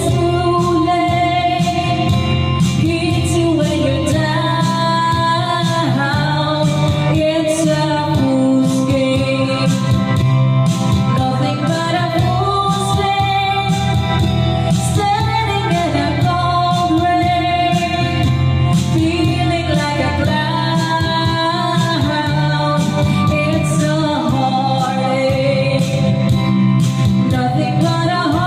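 Background music: a song with a female singing voice over a steady beat.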